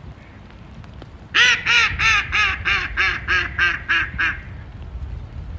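Female mallard giving her decrescendo call: a run of about ten loud quacks, roughly three a second, starting loudest and fading slightly lower as the series goes on.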